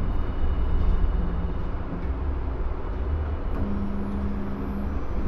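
Low rumble inside a Hiroshima Electric Railway streetcar as it rolls slowly and comes to a stop. A steady low hum starts about three and a half seconds in.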